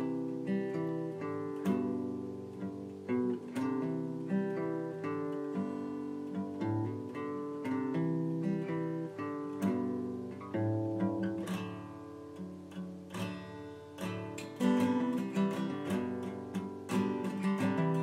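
Instrumental acoustic guitar music, a steady run of plucked notes left to ring.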